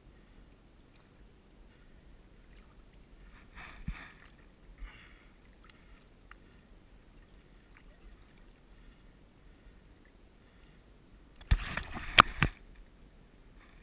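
Water splashing as a steelhead is released by hand in a shallow creek. There are brief splashes about four seconds in, then a louder burst of splashing with a couple of sharp knocks about a second before the end.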